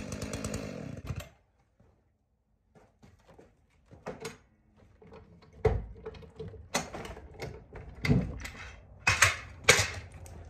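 Jonsered chainsaw running, then shut off about a second in. After a short silence, a scattered series of sharp knocks and clunks, with the loudest ones near the end.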